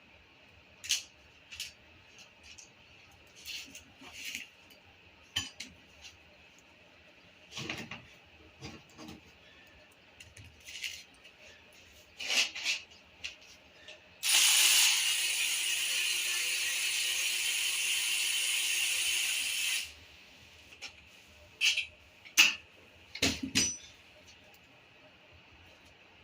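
Scattered metallic clicks and clanks of tools on engine parts, broken by about five and a half seconds of a power tool running steadily with a hissing sound, starting about halfway in and cutting off suddenly.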